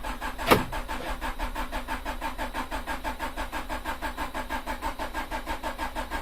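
Third-generation Honda Prelude's starter motor cranking the engine at an even beat of about five to six turns a second, without it firing, with one sharp knock about half a second in. The engine is not catching because fuel has not yet come through a newly fitted fuel filter.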